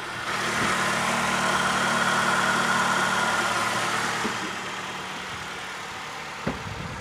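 Steady vehicle noise with a low hum, louder for the first four seconds and then easing off, with a single click near the end.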